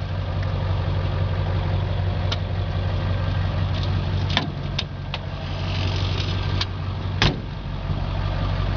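Diesel engine of a 1999 International 4700 medium-duty wrecker idling steadily, with a few light clicks and knocks over it; the loudest knock comes about seven seconds in.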